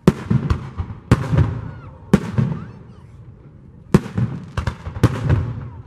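Aerial firework shells bursting in a series of sharp bangs, each trailing off in a rolling rumble and crackle. There are four bangs in about the first second, another about two seconds in, and a cluster of three around four to five seconds.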